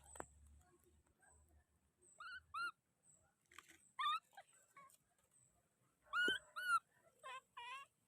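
Baby monkey giving short, high-pitched cries, mostly in pairs, each rising then falling; the loudest pair comes about six seconds in, and the last few waver.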